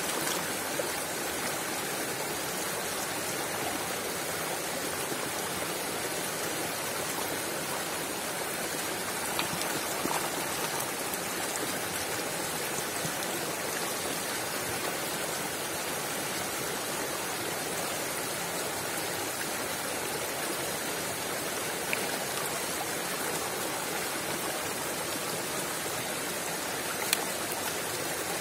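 Shallow stream running steadily over rocks, with splashing as a bunch of fresh herbs is swished and rinsed in the flowing water by hand.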